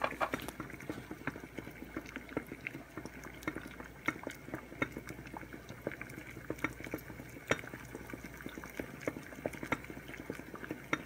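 Water boiling in a saucepan used as a double boiler around a glass measuring cup, heard as a continuous run of small, irregular bubble pops.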